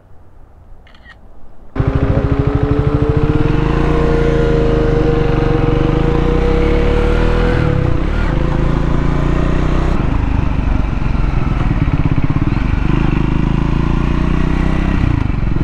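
Triumph Scrambler 400 X's single-cylinder engine running under way, coming in abruptly about two seconds in and holding steady, its pitch rising slowly over the next several seconds as it gathers speed.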